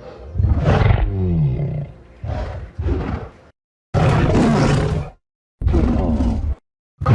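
Kong's sound-designed film creature roars, played as a run of about six separate calls, some gliding in pitch, each cut off by a short gap of silence.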